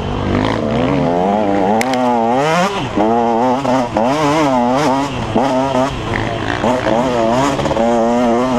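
KTM 150 XC two-stroke dirt bike engine under hard riding, revving up and down again and again as the throttle is worked, with sharp drops in pitch between the rises.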